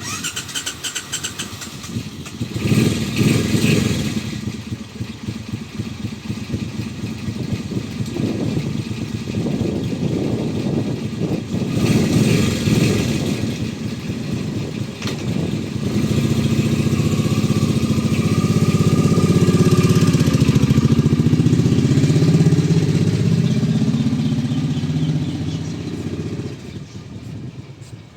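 Suzuki Intruder Volusia cruiser's V-twin engine running and revving in uneven surges. About halfway through it settles into a louder, steady run for around ten seconds, then dies away near the end.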